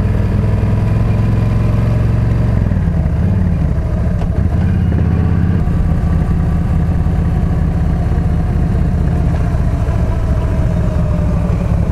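Yamaha V-Star 1300 V-twin engine running while riding, heard from the bike. The engine note changes about three seconds in and settles again about two seconds later.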